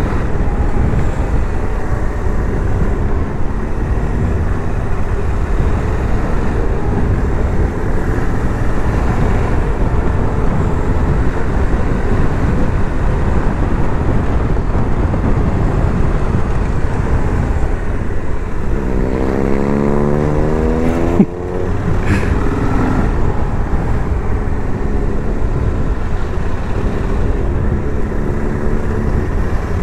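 Cruiser motorcycle engine running at speed under wind rush, as heard from a helmet-mounted camera. About two-thirds of the way through, the revs climb for a couple of seconds, then break off abruptly before the engine settles again.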